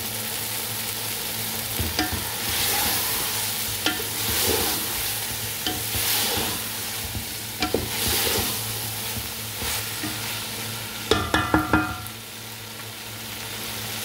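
Chicken koftas and onion-tomato masala sizzling in a metal pot while a wooden spatula stirs and scrapes through them, with a few small clicks. Near the end, a quick run of about five ringing knocks of the spatula against the pot.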